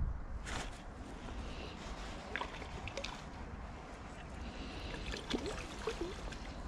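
Spinning reel being wound in to retrieve a lure: a faint, high whirring with light clicks, stopping and starting. A short splash about half a second in as the lure hits the river.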